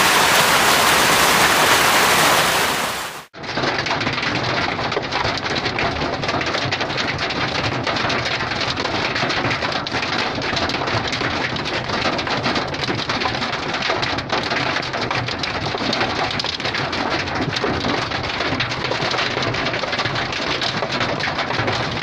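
Heavy downpour of rain mixed with hail, a dense steady hiss. After a cut about three seconds in, it becomes a duller, busier patter of many small impacts, heard from inside a truck cab.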